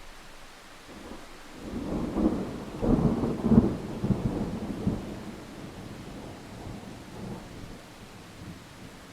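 Thunderclap over steady rain: a rumble builds about a second and a half in, peaks in a few sharp cracks around three to three and a half seconds, then rolls away and fades over the next few seconds.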